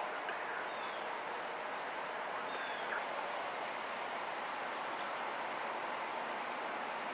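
Open-field outdoor ambience: a steady background hush, with faint short high bird chirps about a second apart near the end.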